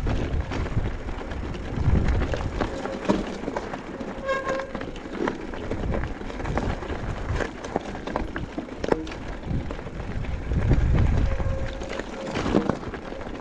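Mountain bike rolling over a rocky gravel trail: tyres crunching and the frame and chain rattling with many sharp knocks. Wind buffets the microphone in low rumbling gusts, strongest at the start, about two seconds in and near the end, and a short squeal comes about four seconds in.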